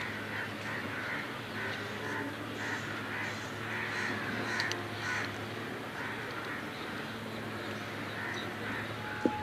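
Crows cawing over and over, roughly one or two calls a second, over a steady low hum. A single sharp click near the end.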